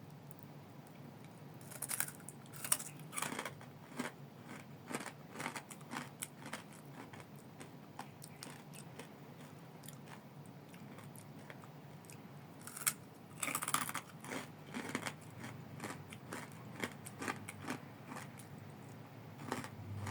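Crispy pork bagnet chicharon being bitten and chewed: clusters of sharp crackling crunches, with a quieter pause of a few seconds in the middle.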